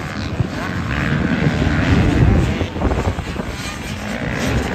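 Several motocross dirt bikes revving as they ride round the track, swelling to their loudest about two seconds in as bikes pass close.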